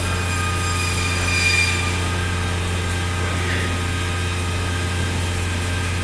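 Steady low machine hum, with faint high whining tones over it and a brief louder high squeal about a second and a half in.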